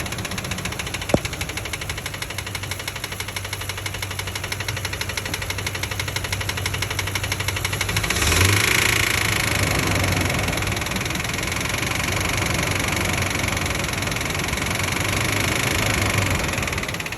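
Ford 5.4 Triton V8 running with a steady, rapid knock, which the owner takes for rod knock after a spark plug blew out. It grows louder about halfway through.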